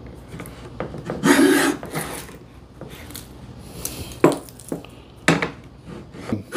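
Hongdui KM-17 router plane cutting wood, its blade scraping across the surface. There is one longer stroke about a second in, then a few short, sharp scrapes near the end.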